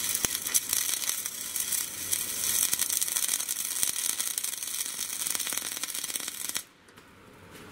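Flux-core wire-feed welding arc crackling and sizzling steadily during an overhead pass. It cuts off abruptly shortly before the end as the arc is broken.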